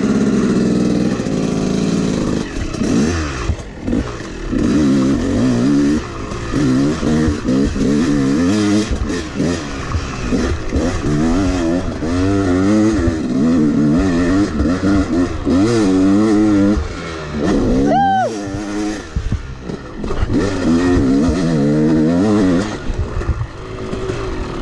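Yamaha 250 two-stroke dirt bike engine heard on board while riding a track, revving up and falling back over and over as the throttle is opened and shut. About three-quarters of the way through it revs sharply up and back down once.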